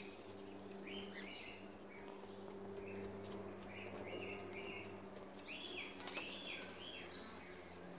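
Faint short bird chirps in small clusters, over a steady low hum.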